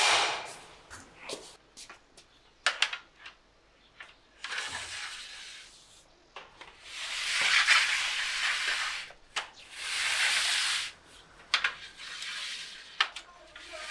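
Noodle drying trays being slid along and set down on drying racks: several one- to two-second scraping slides, with sharp knocks and clicks between them.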